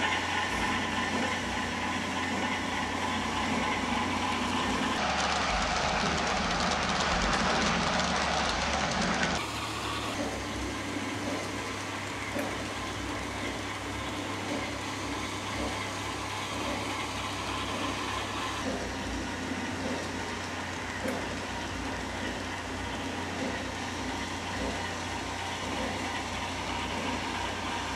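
Sound-equipped HO-scale Alco HH600/660 model diesel switcher running with a freight train: its onboard Quantum sound system plays a diesel engine rumble through the model's speaker, over the clicking of wheels on the track. The sound is louder for the first nine seconds or so, then steadier and quieter.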